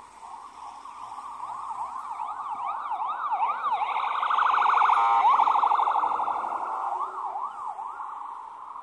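Emergency vehicle siren sweeping quickly up and down in pitch, switching to a rapid warble in the middle and back again. It grows louder to a peak about five seconds in, then fades.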